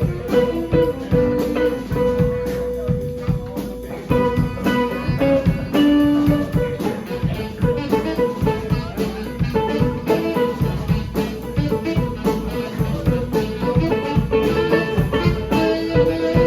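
Band music with no singing: guitar playing over a steady beat, with bass and drums.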